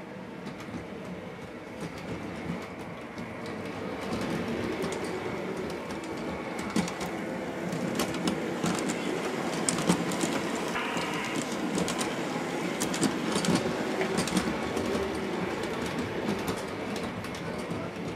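Model CTA 'L' train running along the layout's track, getting louder over the first few seconds, with many sharp wheel clicks over the rail joints.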